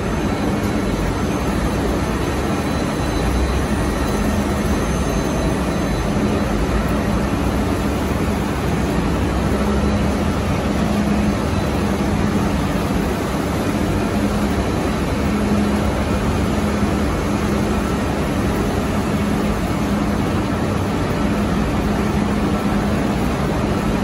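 Steady industrial running noise with a low hum, from a gas-fired conveyor furnace's burners and combustion-air blowers in operation.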